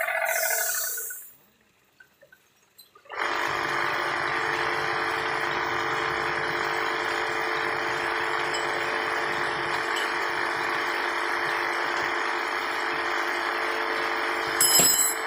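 A short hissing burst at the start, then a pause. About three seconds in, a machine's motor starts and runs steadily with a constant hum. A brief rattle comes near the end.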